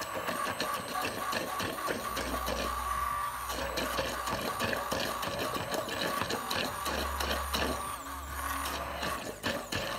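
Immersion hand blender running in a glass mason jar, whirring steadily as it purees a thick cilantro lime dressing, with many quick knocks.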